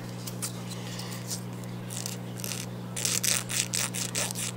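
Emery board rasping in short strokes against a white-faced capuchin monkey's fingernails, scattered at first and then coming quicker and louder about three seconds in. A steady low hum lies underneath.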